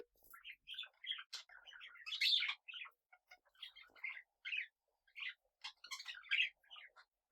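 Small pet parrots chirping in short, scattered calls with brief pauses between them.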